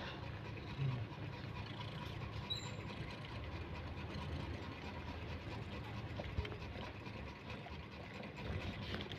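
A steady low hum, like a motor or engine running, with a faint click about six and a half seconds in.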